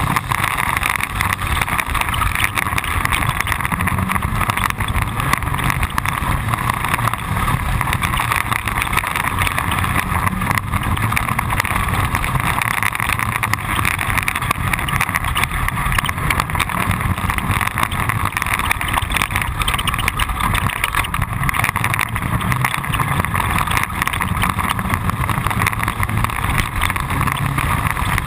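Off-road pre-runner vehicle driving fast on a dirt road. Its engine drone mixes with tyre and chassis noise from the rough surface, steady and loud throughout.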